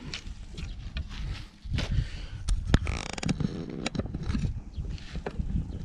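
Handling noise from picking up fishing gear and a wooden forked-stick rod rest from the dry grass: scrapes and a few sharp clicks, with a short rapid ticking about three seconds in, over a low rumble.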